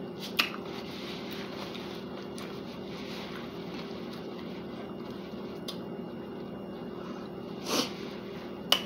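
Steady low background hum, with a few short clicks shortly after the start and again near the end.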